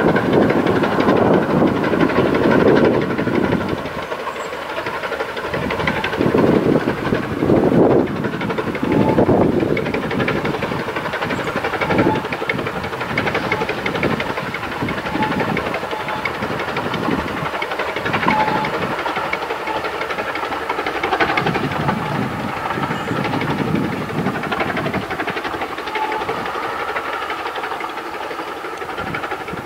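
Vale of Rheidol narrow-gauge 2-6-2 tank steam locomotive No. 9 working a passenger train, its exhaust beating in a steady chuff, with rumble from the wheels on the rails. The beats are loudest in the first third and fainter after that.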